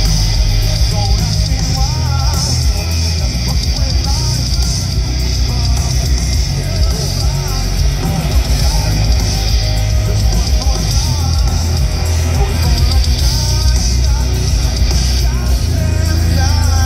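A heavy metal band playing live through a festival PA: distorted guitars, bass and a drum kit, with a singer's vocals over them. It is heard from out in the crowd, loud and heavy in the bass.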